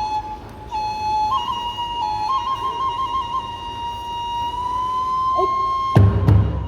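Kagura bamboo transverse flute playing a trilling melody that settles into a long held note. About six seconds in, the kagura ensemble's drum and hand cymbals come in with a loud strike.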